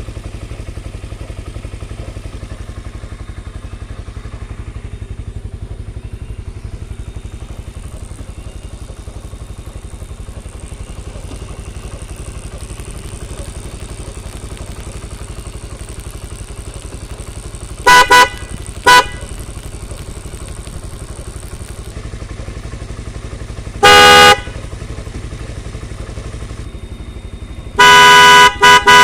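Eco 9 car horn mounted on a motorcycle, sounding very loud in short blasts: a quick pair past the middle, a single longer blast later, and several more near the end. A motorcycle engine runs steadily underneath.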